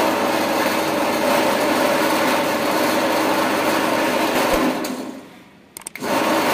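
Mini corn sheller thresher driven by a 2 HP electric motor, running with a steady loud whir and rattle. It is switched off about four and a half seconds in and winds down to quiet. A few sharp clicks follow, and a loud noise starts again right at the end.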